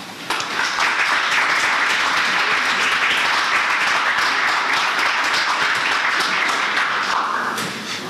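Audience applauding steadily, the clapping thinning out about seven seconds in.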